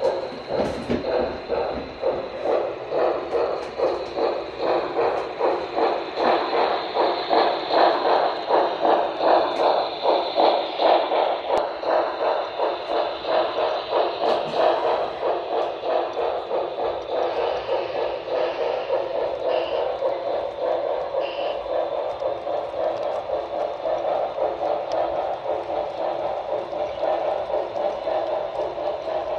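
Steam-locomotive chuffing from the sound system of a model Santa Fe 4-8-4 No. 3755, an even beat of about two chuffs a second through a small speaker. It gives way in the second half to a steadier rolling sound as the model freight cars pass.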